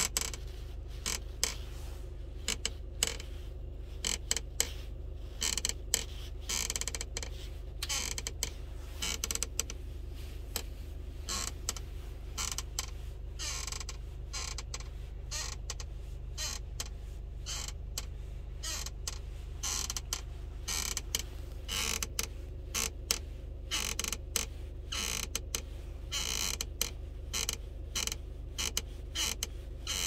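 Latched car seat belt buckle creaking and clicking irregularly, over and over, over a steady low hum in the cabin: the unwanted buckle noise the owner is showing as a fault.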